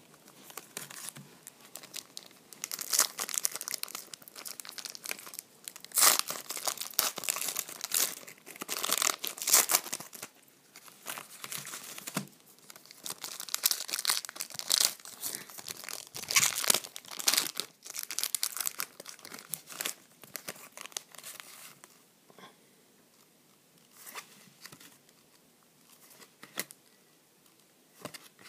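Hockey card pack wrappers, paper and foil, being torn open and crinkled in the hands in a long run of loud crackling bursts. The crackling dies down over the last several seconds, leaving only a few soft sounds as the cards are handled.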